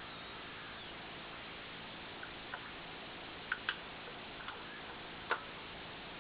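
A handful of light, irregular clicks and taps over a steady hiss: small tools and metal parts being handled while a hard disk drive is taken apart. The clicks come in the middle and later part, the sharpest one near the end.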